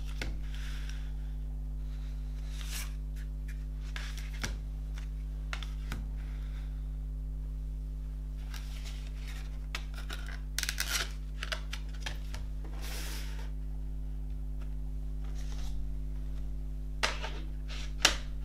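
Cardboard CD sleeves and a plastic jewel case being handled and slid across a wooden tabletop: scattered rustles and scrapes, then two sharp clicks near the end, the second the loudest. A steady low hum runs underneath.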